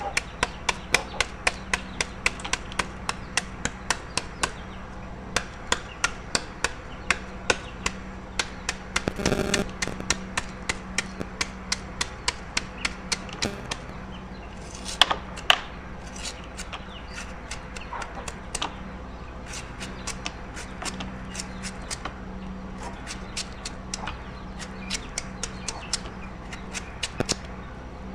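A knife chopping on a cutting board in a steady run of sharp strikes, about three a second, slowing and becoming more irregular about halfway through. A low steady hum runs underneath.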